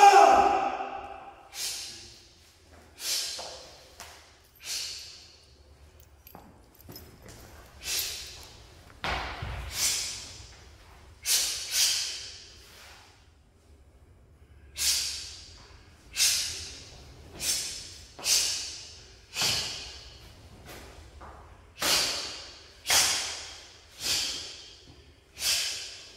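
Sharp, forceful exhalations of a martial artist performing a karate-style form, one pushed out with each strike or kick, roughly every second or so with a few short pauses. The first, at the very start, is the loudest and has a brief voiced edge.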